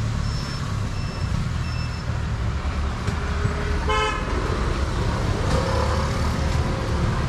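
Steady low rumble of road traffic, with a short vehicle horn toot about four seconds in and a fainter, longer horn tone a little after it.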